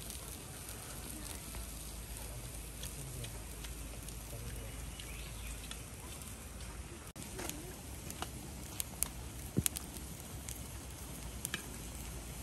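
Wood cooking fire crackling under a pot of noodles: a steady hiss with scattered sharp crackles, several close together about nine to ten seconds in.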